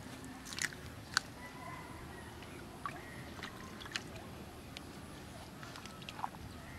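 Wet mud squelching and shallow water sloshing as a hand and a thin metal rod dig into a waterlogged mud hole, with several short, sharp squelches and slaps spread through it.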